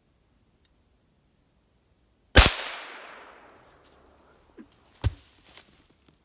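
A single loud gunshot about two and a half seconds in, its echo fading over a second or so, followed about two and a half seconds later by a shorter, sharper crack.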